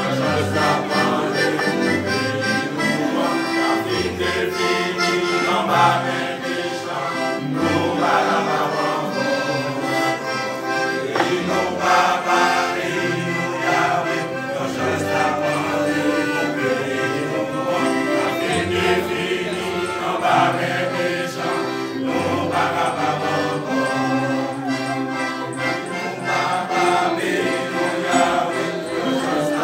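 Male choir singing in several-part harmony, holding chords that change every second or so.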